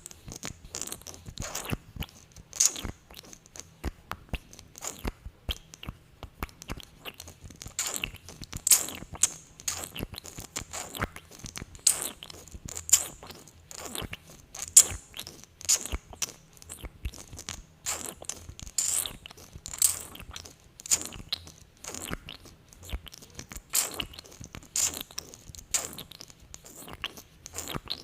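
Sticky lip-gloss mouth sounds: glossy lips pressing together and pulling apart in a run of small, irregular wet clicks and smacks, one or two a second.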